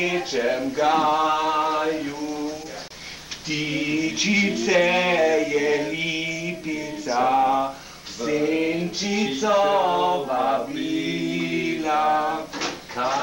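Unaccompanied singing by voices, in phrases of a second or two with held, wavering notes and short breaks between them.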